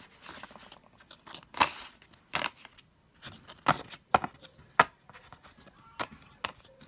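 Stiff postcards and a card booklet being handled over a cardboard box: a run of sharp paper-and-card snaps and taps, about seven of them.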